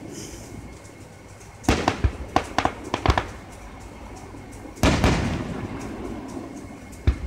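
Aerial fireworks going off: a quick string of sharp cracking pops about two seconds in, then a loud bang with a long rumbling echo about halfway through, and another sharp bang near the end.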